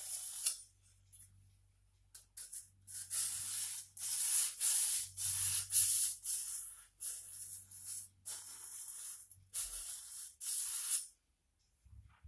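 Sandpaper wrapped around a wooden block scraping back and forth along a steel axe's flat scandi bevel to sharpen the edge. It comes as a series of short scratchy strokes, about one or two a second, and stops about a second before the end.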